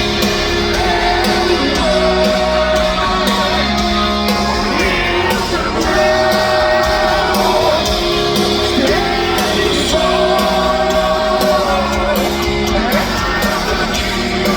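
Live heavy metal band playing loudly, a lead melody of long held notes that bend in pitch over the full band, with crowd voices shouting and singing along.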